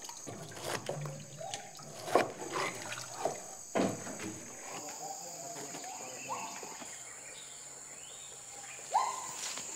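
Tropical forest ambience with a steady high insect drone, a few short rising whooping animal calls, and in the first few seconds sharp knocks of a knife chopping pineapples on a board.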